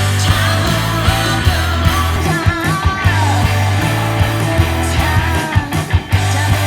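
Rock song with a singing voice, guitar, a steady bass line and regular drum hits, played back through a vintage Telefunken TLX hi-fi loudspeaker for a sound comparison.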